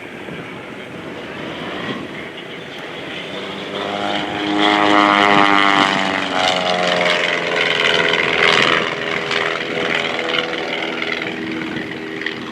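Clipped-wing Taylorcraft light propeller airplane flying past during aerobatics. Its engine and propeller grow louder about four seconds in, and the note drops in pitch as it goes by.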